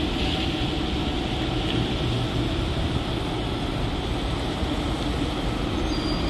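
Volksbus 17-230 OD bus with a Mascarello Roma 330 body driving slowly past, its diesel engine running with a steady low drone and its tyres rolling over wet pavement.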